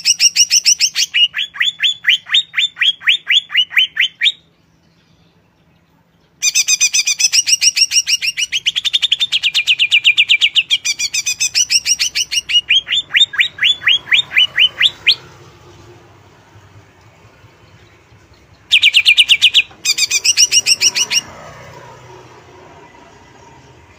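Greater green leafbird (cucak ijo) singing in bouts of rapid, sharp repeated notes. There is a short pause about four seconds in, the longest bout stops about fifteen seconds in, and a brief final burst comes near twenty seconds.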